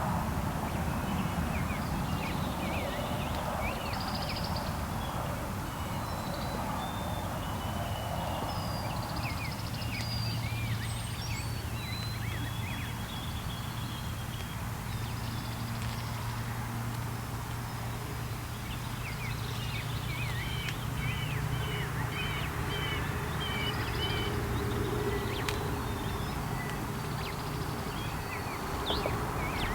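Songbirds chirping and trilling in many short calls over a low rumble of outdoor background noise. A low steady hum joins in about a third of the way through.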